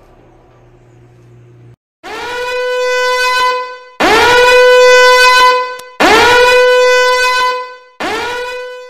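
A horn-like tone blown four times, each blast scooping up in pitch at the start and then held steady for about two seconds. The first blast swells in and the last is cut short near the end.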